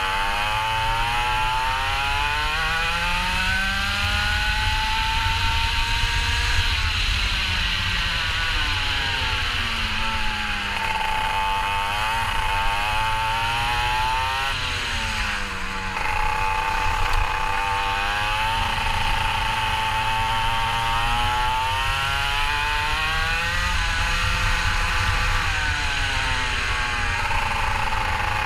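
Kart engine running hard on a lap, its revs climbing on the straights and dropping for the corners, over and over. Under it is a steady low rumble.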